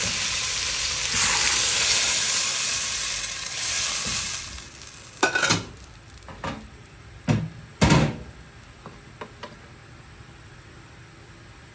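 Long green beans sizzling in a hot stainless-steel pot as they are stirred with a wooden spatula. The sizzle dies down after about four seconds, followed by a few sharp knocks and clatters.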